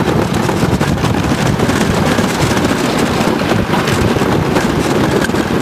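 The Tornado wooden roller coaster's train running along its wooden track, a loud continuous rumble heard from the back seat, with heavy wind buffeting the microphone.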